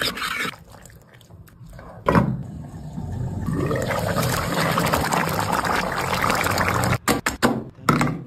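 Mutton curry bubbling and sizzling in a steel pan, a steady hiss lasting several seconds after a sharp knock about two seconds in. Near the end come several wet plops as spoonfuls of thick curry are dropped onto a plate.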